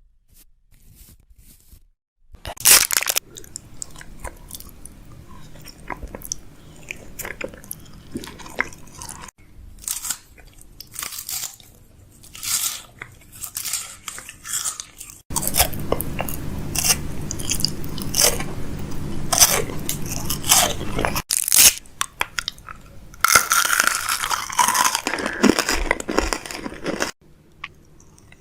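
Close-up crinkling, crunching and tapping of objects being handled, in a run of short segments that change abruptly every few seconds.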